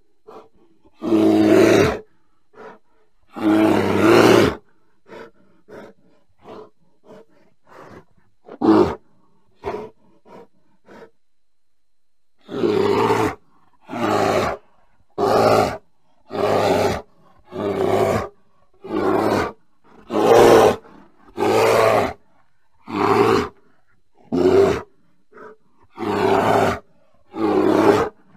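Bear calling: two long, loud calls, then a run of short, soft grunting sounds. After that comes a steady series of about a dozen calls, each under a second long, roughly one every second and a bit.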